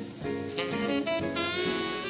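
Swing jazz combo playing an instrumental passage, with guitar and tenor saxophone to the fore.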